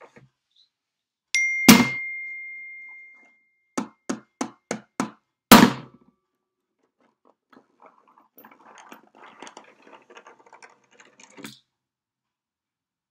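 A hand wearing a metal skeleton-hand bracelet hits a wooden tabletop. A hard thump comes with a bright metallic ding that rings for about two seconds, then five quick knocks and one more hard hit, then a few seconds of soft rubbing and scratching ending in a click.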